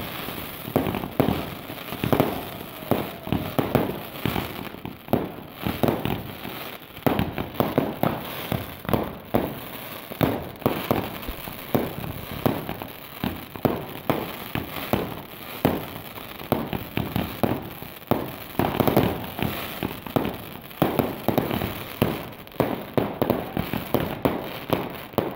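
Fireworks going off in a rapid, unbroken string of bangs, several a second.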